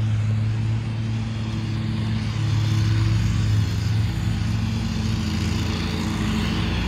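Car running with a steady low engine drone and road noise.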